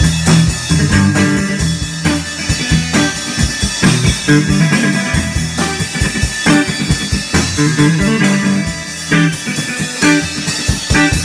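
A guitar and drum kit played together as a two-piece band jamming live, the guitar holding low, ringing notes over a busy stream of drum hits.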